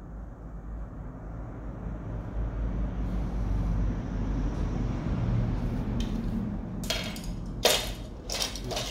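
A low rumble grows louder over several seconds. Near the end come a few sharp clacks as fishing rods are picked up and knock against each other.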